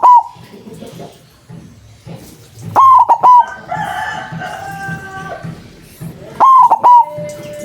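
White zebra dove (perkutut) singing its cooing phrase, each a quick run of loud notes: the end of one at the start, then two full phrases about three and a half seconds apart.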